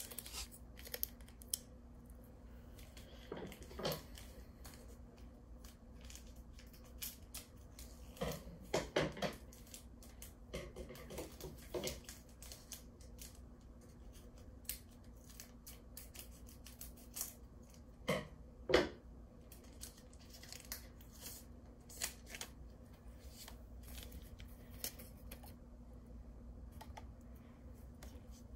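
Foil booster-pack wrappers and trading cards being handled: scattered small clicks and crinkles, with four louder bursts of crinkling or tearing a few seconds apart.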